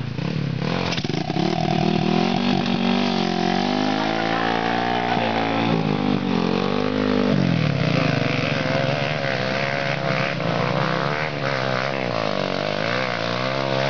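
Trail motorcycle engine revving up and down repeatedly as the bike is ridden down a muddy, rutted track.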